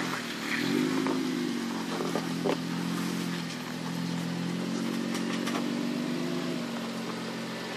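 Jeep Wrangler Rubicon engine running at low revs while crawling over rock, with a short rise in revs about a second in and otherwise steady. A few sharp knocks and clatter sound over it.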